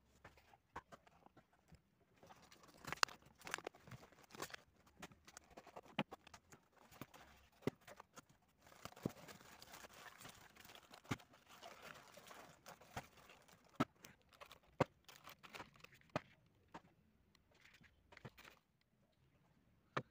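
A cardboard parcel being unpacked by hand: paper and honeycomb kraft wrapping rustling and crinkling, with scattered sharp clicks and knocks as the box and the plastic bottles inside are handled. The rustling is thickest in the middle.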